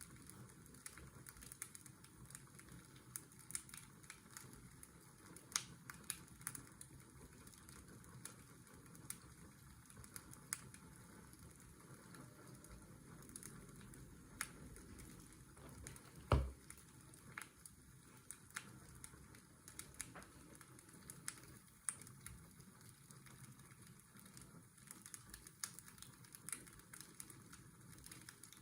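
Wood fire crackling, with scattered irregular pops and one louder crack a little past halfway. Under it runs a steady low whir of washing-machine white noise.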